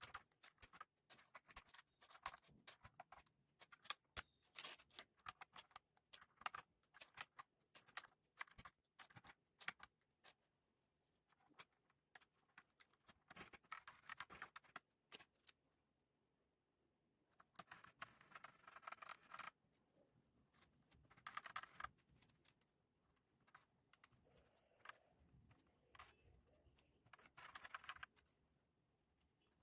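Typing on a mechanical keyboard with Akko CS Lavender Purple tactile switches and PBT keycaps: a run of rapid keystrokes for about the first ten seconds, then short bursts of keystrokes with pauses between them.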